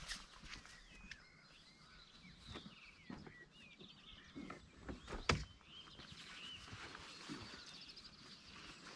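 Birds chirping in short calls, with a few sharp knocks and light handling noises from gear being moved around a car boot; the loudest knock comes a little past halfway.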